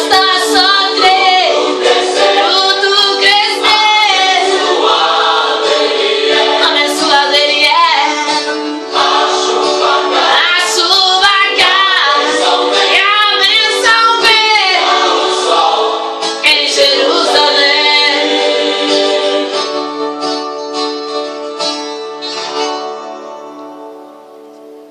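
Gospel song with sung vocals over guitar and keyboard accompaniment; the singing stops about twenty seconds in and the music fades out.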